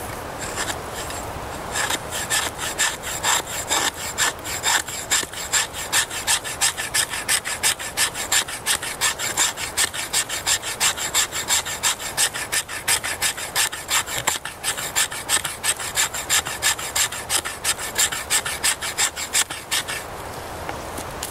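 The spine of a Spyderco Bushcraft knife scraping down a split stick of wood in quick repeated strokes, about three a second, shaving off fine tinder. The scraping starts about two seconds in and stops shortly before the end.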